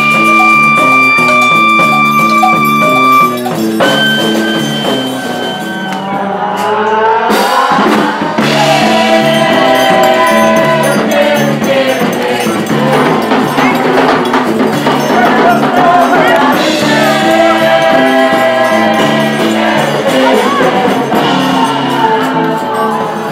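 Live Brazilian forró band playing: a clarinet holds two long high notes over a pulsing bass line and drums, then from about eight seconds in several voices sing together over a triangle and hand percussion.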